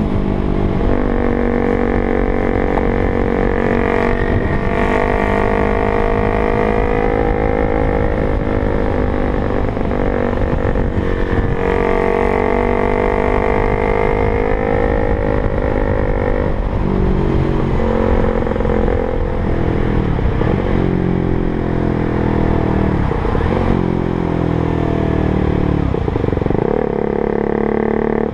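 KTM Duke 125's single-cylinder four-stroke engine running through a LeoVince GP-style aftermarket exhaust under way. The engine note holds fairly steady at high revs for the first half. In the second half it drops and picks back up several times.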